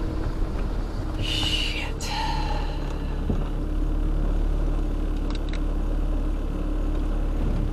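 Jeep Cherokee XJ driving slowly on a dirt road, heard from inside the cab: a steady engine and tyre rumble.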